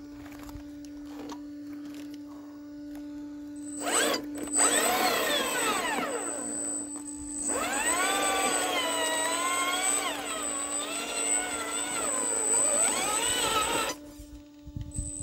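Electric motor and drivetrain of an RC rock crawler whining under load as it climbs rock. The whine starts about four seconds in, rises and falls in pitch with the throttle, and drops out briefly near the end.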